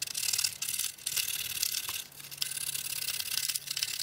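Fine sandpaper rubbed over the contacts of a food dryer's thermostat: a scratchy rasping that lets up briefly about halfway. The contacts are being cleaned because they are blackened.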